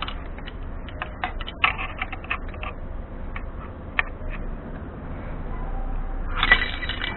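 Light metallic clicks and clinks of a wrench working at the starter motor's mounting bolts on a Suzuki LTZ 400 quad. They come in a quick cluster about two seconds in, then a louder, denser clatter with some ringing near the end.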